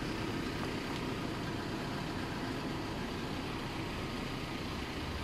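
A steady low mechanical hum.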